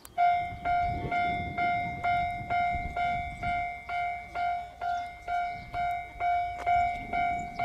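Railway level-crossing alarm ringing, a repeated bell-like tone struck a little over twice a second, starting abruptly near the start, over a low rumble.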